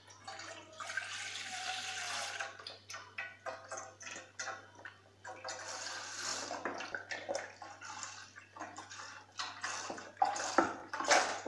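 Milk pouring in a stream into a stainless steel pot and splashing, in several uneven spells, loudest near the end.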